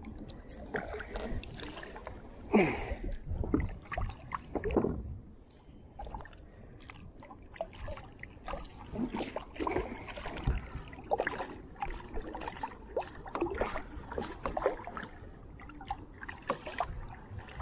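Choppy water slapping and sloshing against a plastic fishing kayak's hull, with irregular knocks and splashes.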